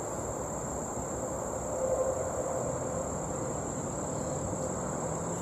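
Insects, crickets by their sound, trilling steadily on one high note, over a low outdoor background rumble.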